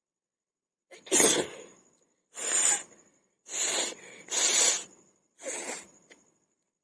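A person forcing five hard blasts of breath through the nose, sneezing and nose-blowing, about a second apart; the first, about a second in, is the loudest.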